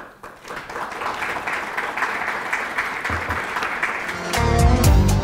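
Audience applauding; about four seconds in, music with a strong bass comes in over it.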